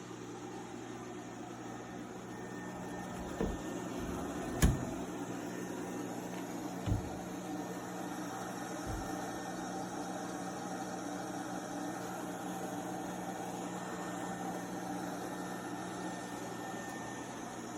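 Lefant M210 Pro robot vacuum running: a steady motor and brush whir with a low hum. There are a few short knocks, the sharpest about four and a half seconds in.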